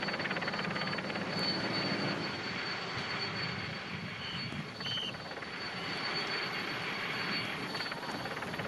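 Steady helicopter noise with a fast, even rotor chop.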